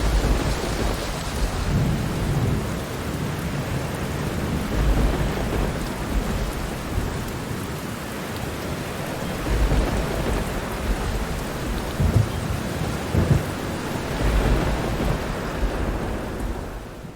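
Steady heavy rain with thunder rolling low several times through it.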